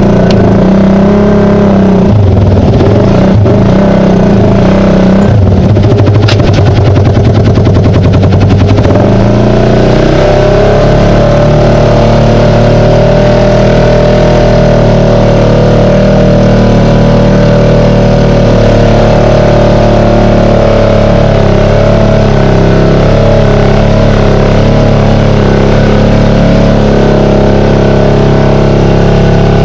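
Side-by-side UTV engine revving up and down for the first several seconds, then running at a steady drone as it drives through a water-filled mud pit.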